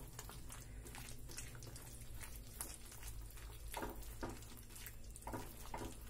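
Faint, irregular soft plops and clicks of a thick, sticky cornflour halwa mixture bubbling in a nonstick pan while a whisk stirs it. The halwa is nearly cooked down to its finished, set-ready consistency.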